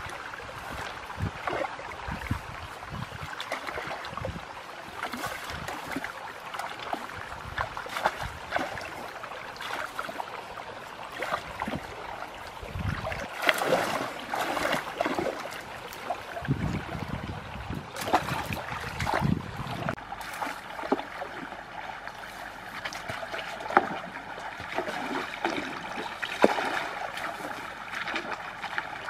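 Muddy water splashing and sloshing in irregular bursts as a wooden pole is jabbed and stirred through the water at a weedy bank.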